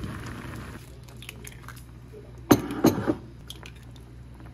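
Pot of ramyeon in kimchi-stew broth bubbling at a boil, then two sharp cracks about two and a half seconds in as eggs are cracked and dropped into the pot, followed by a few light clicks.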